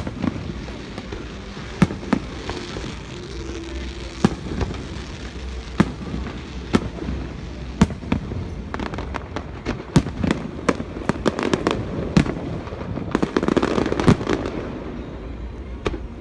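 Aerial fireworks bursting: a string of sharp bangs at irregular intervals, coming thicker and overlapping with crackle from about nine seconds in.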